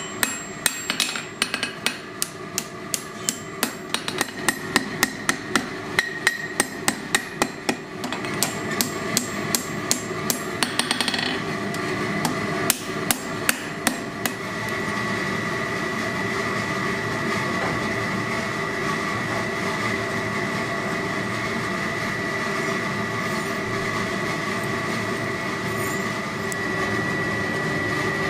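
Hand hammer striking hot steel on an anvil, a steady run of blows about two to three a second that stops about halfway through. A steady hum with a high tone carries on for the rest.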